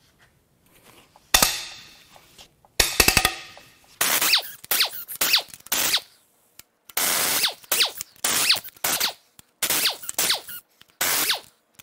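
Earthquake impact wrench spinning out the cylinder head bolts of a big-block Chevy 454, in about a dozen short bursts. The first two begin with sharp hammering hits, and each burst ends in a falling whine as the motor spins down.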